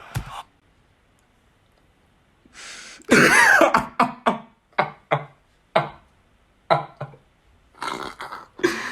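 A person coughing and clearing their throat: one drawn-out, strained vocal sound followed by a run of short, sharp coughs.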